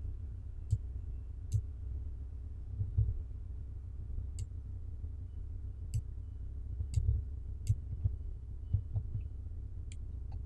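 Computer mouse clicking about seven times at irregular intervals, sharp single clicks over a steady low hum, as the chart is dragged and zoomed.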